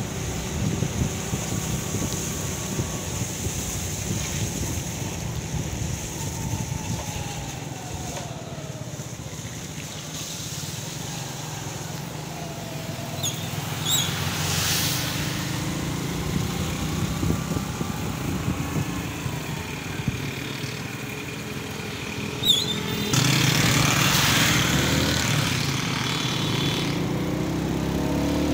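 Motorcycle engine running while riding along, with wind noise on the microphone. It grows louder for several seconds near the end.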